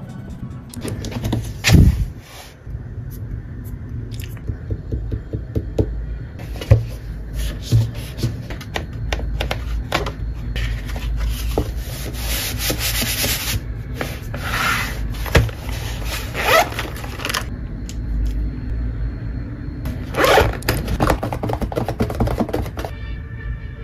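Hands rubbing and smoothing the paper pages of a hardcover sketchbook, pressing the open spread flat, with repeated brushing sweeps and small knocks; a louder thump about two seconds in.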